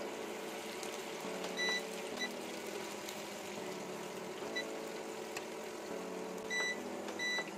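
Coated macaroni frying in hot oil in a pan on an induction cooktop: a steady sizzle over an appliance hum, with two pairs of short high beeps.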